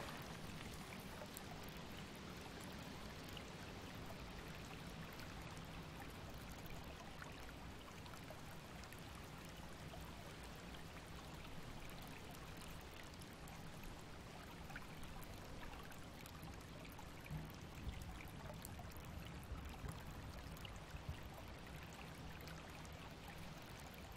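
Faint, steady ambience of running, trickling water, with a few brief louder splashes about two-thirds of the way through.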